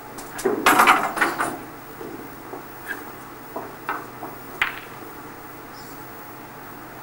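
Snooker balls clicking together on the table: the cue ball strikes a red and the red is potted, a cluster of knocks about a second in, followed by a few lighter single clicks of balls touching.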